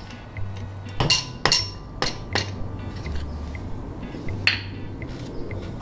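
A handful of sharp metal-on-metal clinks, each ringing briefly, as tools work a piston off the connecting rod of a Suzuki DR200 engine. Four come close together about a second in and one more near the end.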